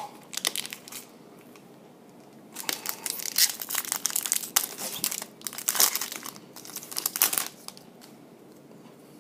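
Trading-card pack wrapper crinkling as it is handled and torn open: a few short crinkles at the start, then about five seconds of on-and-off crinkling.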